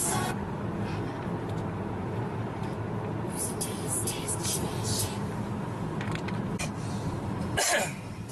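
Steady road and engine noise heard inside the cabin of a moving car, with a short, loud noise near the end.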